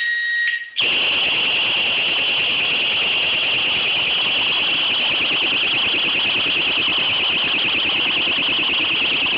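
Xena XX10 disc-lock alarm: a short warning beep, then about a second in the full alarm goes off, a loud, high-pitched, fast-pulsing electronic shriek held steady. The alarm is set off by the motorcycle being moved or tampered with while the lock is on the disc.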